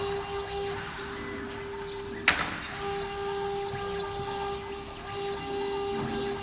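Small 6090 hobby CNC router at work: its 2.2 kW water-cooled spindle gives a steady high whine while the axes move and the bit cuts, the cutting hiss swelling and fading about once a second. A single sharp click comes a little over two seconds in.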